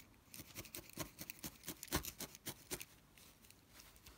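Felting needles in a three-needle tool stabbing into wool on a foam pad: a run of soft, irregular taps, about three a second, with one louder tap about two seconds in.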